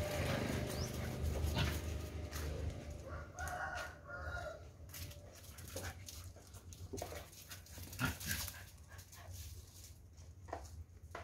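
Several dogs playing and scuffling, with short vocal sounds and scattered clicks; one longer drawn-out call comes about three to four seconds in.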